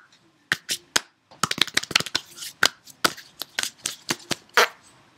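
Two people's hands slapping, clapping and snapping in a fast, elaborate handshake: a quick run of sharp slaps, thickest in the middle, with one loud slap near the end.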